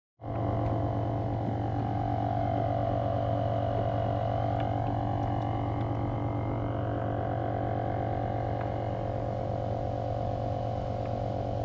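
A steady mechanical hum made of many held tones, unchanging throughout, with a few faint ticks near the end.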